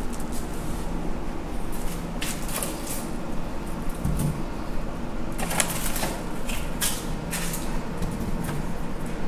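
Coarse sea salt sprinkled by hand onto a raw salmon fillet in a glass baking dish, salt-curing it to draw out moisture: a soft, grainy patter that comes in several spells.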